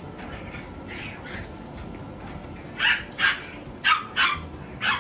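Yorkshire terrier puppy barking: about five short, high-pitched yaps in quick pairs, starting about halfway through.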